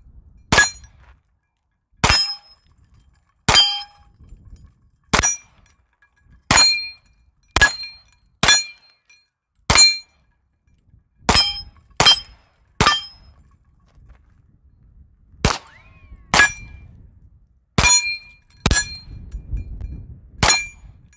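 Ruger PC9 9mm carbine fired in slow semi-automatic shots, about sixteen at uneven intervals of roughly a second. Most shots carry a short metallic ring from a hit on a steel plate.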